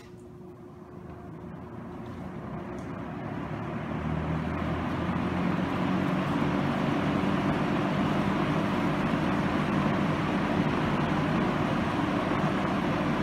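Dayton Model 4C418 20-inch box fan speeding up from low to high: the motor hum and rush of air grow steadily louder over about six seconds as the blades come up to speed, then run steady on high.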